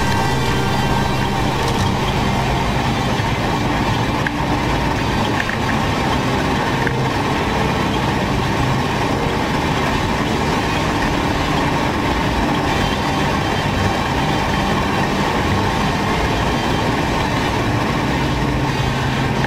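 New Holland CX820 combine harvester running steadily while cutting a cereal crop, heard from the header: a constant machine drone with dense noise over it.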